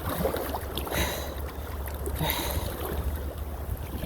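River rapids rushing around a kayak, with a couple of brief surges of splashing about a second and two seconds in, over a low rumble of wind on the chest-worn microphone.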